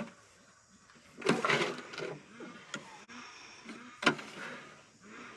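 Shovel scraping and knocking through manure, with a louder scrape about a second in and a few sharp knocks after it.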